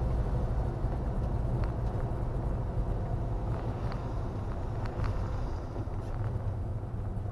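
Camping car driving, heard from inside the cab: a steady low engine and road rumble with a few light clicks and rattles, getting a little quieter towards the end.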